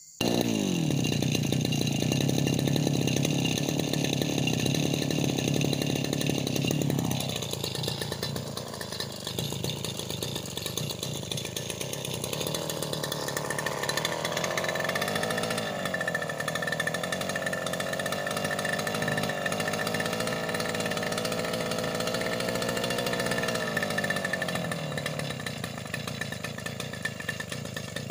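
Backpack brush cutter with a nylon string head running at high speed and cutting grass. Its engine note drops about seven seconds in, then rises and falls with the throttle, and settles lower near the end.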